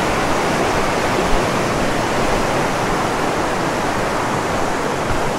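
Steady rushing of running water, a mountain stream or cascade, an even hiss with no change.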